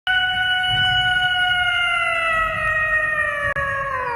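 A cat's long, drawn-out meow held as one loud note, slowly sliding down in pitch.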